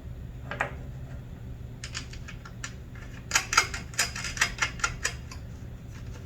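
Quick, irregular run of light metal clicks and rattles as a bicycle wheel's axle and hardware are worked back into the frame. One click comes about half a second in, and the rest cluster from about two to five seconds in.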